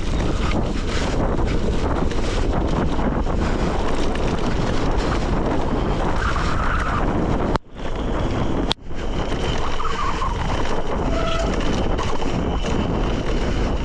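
Wind buffeting the bike-mounted camera's microphone over the rumble and crunch of gravel-bike tyres rolling down a dirt forest road, with small clicks and rattles from the bike. The sound drops out briefly twice a little past halfway.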